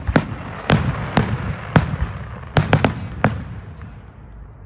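Aerial fireworks bursting: a rapid series of about eight sharp bangs, three of them in quick succession a little past halfway, each with a crackling echo, then dying away near the end.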